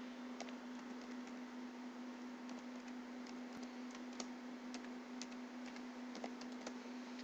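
Computer keyboard being typed on, faint irregular key clicks, over a steady low electrical hum.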